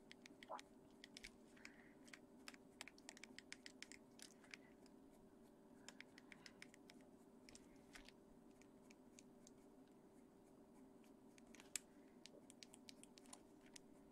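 Faint scratching of a Caran d'Ache Pablo coloured pencil on paper, laid down in clusters of quick short strokes with a pause of a few seconds past the middle, over a low steady hum.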